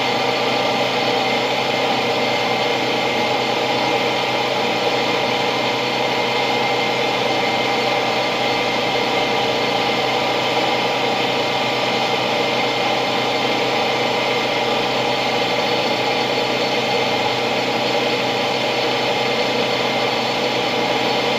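A motor running steadily: a constant mechanical hum with several fixed tones that does not change.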